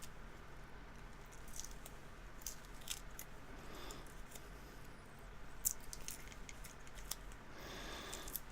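Faint handling noise: light clicks and rustles of a small key being handled and tape peeled off it, with one sharper click about two-thirds of the way through.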